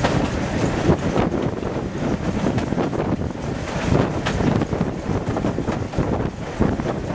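Train running downhill behind steam locomotive 53808: a steady rumble of wheels on the rails with irregular knocks, and wind buffeting the microphone.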